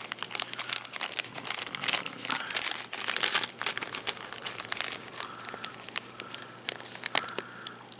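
Clear plastic film lid of a microwave meal tray crinkling as it is handled and flattened out, a dense crackle that thins out over the second half.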